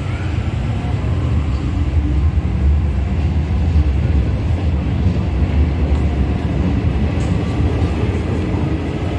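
Paris Metro MF67 train pulling out of the station alongside the platform: a heavy low rumble from wheels and motors that builds about two seconds in, stays loud through the middle, and eases near the end.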